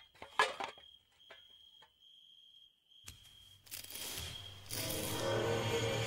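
Horror-drama sound design: a thin, steady high-pitched tone with a few sharp clicks and knocks, then, about three seconds in, an eerie music swell with a low hum that rises and grows loud near the end.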